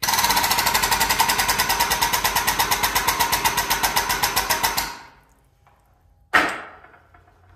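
Air-over-hydraulic pump running with a rapid, even chatter of about ten strokes a second, building pressure in a hydraulic ram that pushes a mandrel into exhaust tubing to stretch it. It stops about five seconds in, and two short sharp sounds follow, one near the end.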